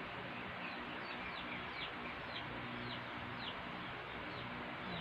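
Faint bird chirps in the background: short high peeps that fall in pitch, repeated about every half second, over a steady low hiss.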